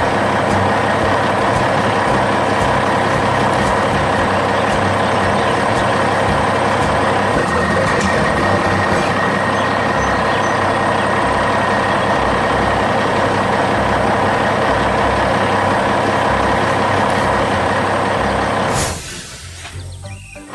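Heavy dump truck engine running steadily, a dense rumble with a high steady whine over it, dropping away suddenly near the end.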